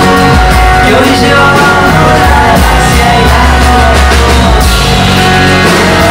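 Live band playing a song: strummed acoustic guitar and electric bass with singing, loud and steady throughout.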